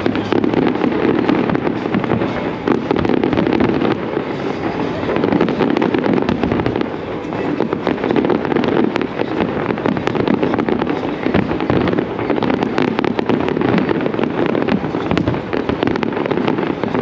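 Aerial fireworks display going off without a break: a dense run of bangs and crackling bursts, one on top of another.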